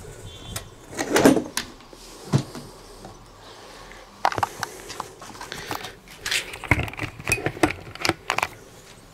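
Handling noises from an old electronics carrying case: scattered clicks and knocks as its latched lid is opened and the case is moved about, with a louder knock about a second in and a cluster of clicks near the end.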